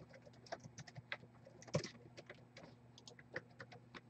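Typing on a laptop keyboard: quick, irregular, faint key clicks.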